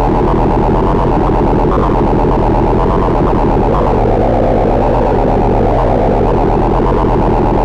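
Arturia Buchla Easel software synthesizer playing a dense, gritty synth noise with a rapid flutter running through it.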